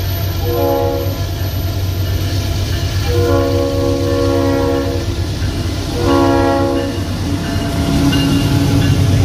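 Diesel freight locomotive sounding its multi-tone air horn three times, short, long, short, over the steady low rumble of its engine. The rumble grows louder near the end as the locomotive draws alongside.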